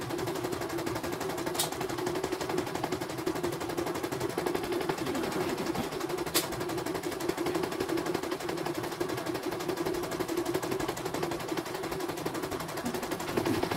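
CNY portable embroidery machine stitching a design: a rapid, steady rattle of the needle bar and hoop drive.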